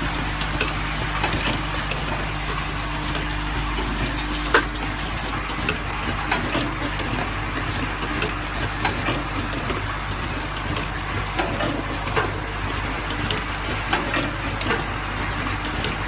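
Automatic assembly machine for medical blood bag connectors running: a steady low machine hum under continual irregular clicking and clattering of its pneumatic actuators and plastic parts, with one sharp louder click about four and a half seconds in.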